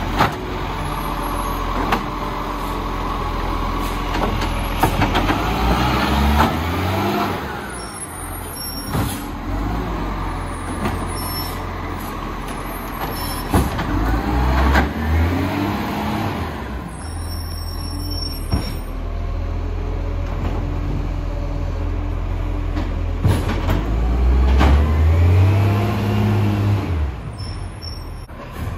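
Garbage truck with its diesel engine running steadily, revving up and back down three times, roughly nine seconds apart, with several sharp knocks and clanks in between.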